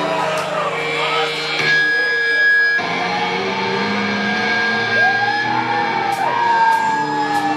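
Live electric guitars ringing with long held feedback tones and slow swooping pitch glides that rise and fall, over a low sustained drone, with a few light high ticks.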